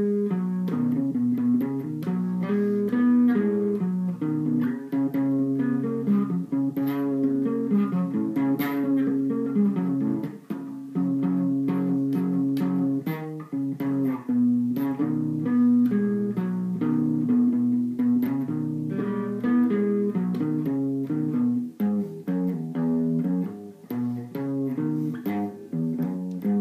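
Solo electric guitar playing a melodic passage of plucked single notes and chords, mostly in the low-middle register, with a brief break about ten seconds in.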